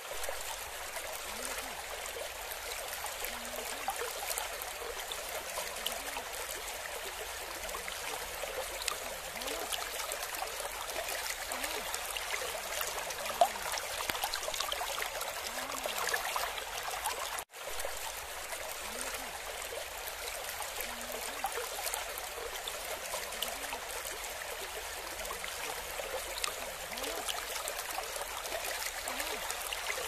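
Running water splashing and trickling steadily, like a stream or small cascade, with a brief dropout for an instant about halfway through.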